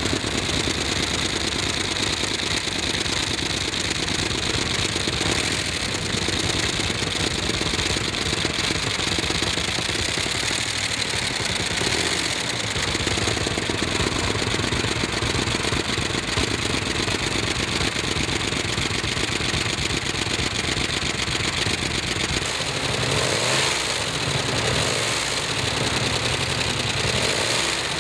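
Ford 4.6-litre single-overhead-cam V8 fitted with a desmodromic springless valvetrain, running steadily on an engine stand with its valve covers off and the cams and rocker arms exposed. The engine note shifts a little about 22 seconds in.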